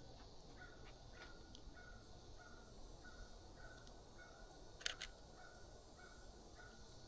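Canon EOS RP camera shutter firing once, a quick double click about five seconds in, over faint outdoor quiet with a soft high peep repeating about twice a second.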